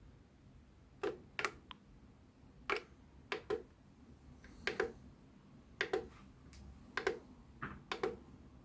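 Small plastic buttons on a retro radio alarm clock being pressed one after another, about seven presses, each a sharp click or quick double click.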